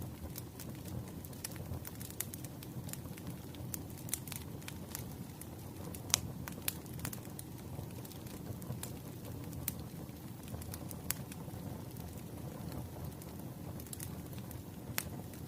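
Wood fire burning with a steady low rumble and frequent sharp crackles and pops from the burning logs; the loudest pop comes about six seconds in.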